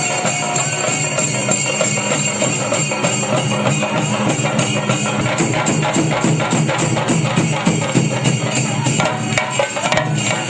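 Ensemble of Kerala chenda drums beaten fast with curved sticks, a loud, dense, unbroken rhythm of rapid strokes.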